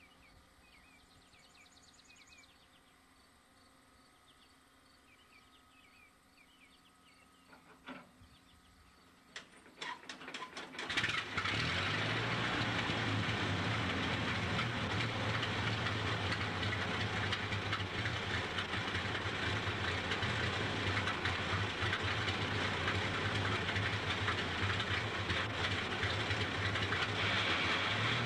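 The 1925 Indiana truck's engine starting: a few sharp firing pops about ten seconds in, then it catches and runs steadily with a deep, even beat. Faint bird chirps come before it starts.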